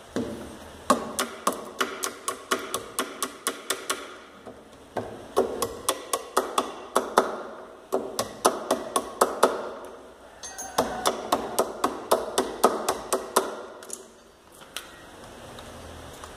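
Electric drill's keyed chuck being tightened by hand around a wooden blank: four runs of sharp clicks, about four a second, with short pauses between them and a single click near the end.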